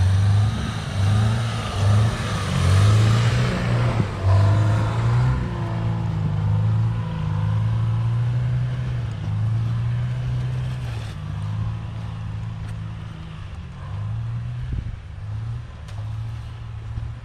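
Off-road 4x4's engine revving hard in surges under load as it climbs a long hill, then settling to a steadier note and slowly fading.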